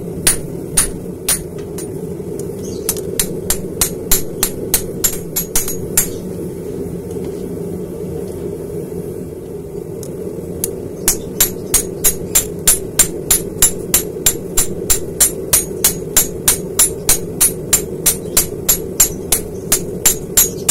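Hammer blows on red-hot Böhler N695 stainless steel being forged into a chef's knife blade on an anvil: sharp, regular strikes about two to three a second, stopping for about four seconds in the middle, then picking up again. A steady low hum from the running forge lies underneath.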